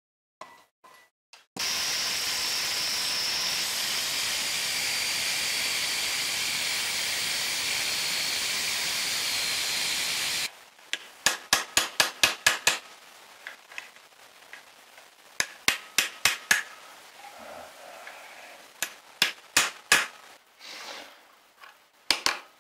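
Angle grinder cutting steel threaded rod, a loud steady hiss and high whine lasting about nine seconds that starts and stops abruptly. After it come several quick runs of sharp metallic taps.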